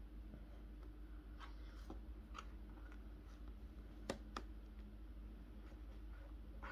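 Faint clicks and taps from a toddler eating at a plastic plate: a few soft ones, then two sharper clicks close together about four seconds in, over a steady low hum.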